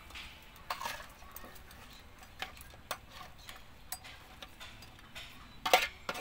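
Steel ladle scraping and clinking against a metal cooking pan as thick crab gravy is spooned out into a bowl: irregular clicks and short scrapes, with a louder clatter near the end.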